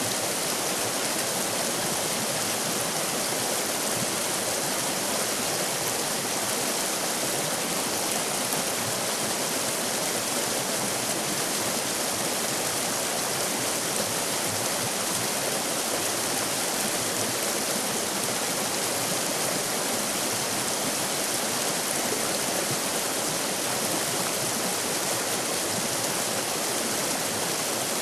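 River rapids: water rushing over rocks in a steady, unbroken hiss and splash.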